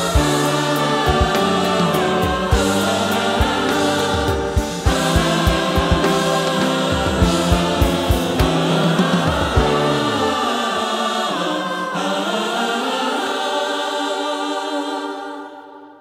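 Gospel choir singing with a band behind it and a steady beat. About ten seconds in, the beat and low accompaniment drop out, leaving the voices holding a final chord that fades away near the end.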